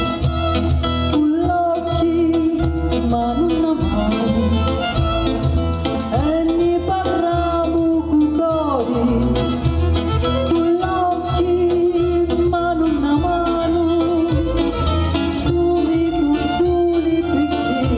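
A fado song performed live: a woman singing over acoustic guitars, Portuguese guitar and violin.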